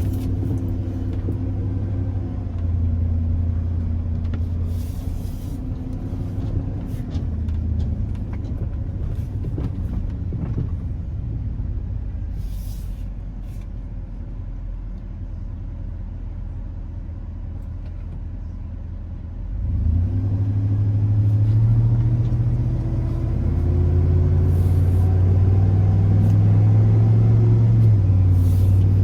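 Chevrolet Silverado 3500HD's 6.0-litre gas engine running steadily. It gets louder about two-thirds of the way in, and its pitch creeps up as the revs rise.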